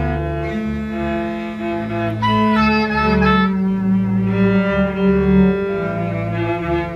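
Background music on bowed strings: a deep line of long held notes changing about once a second under a higher melody.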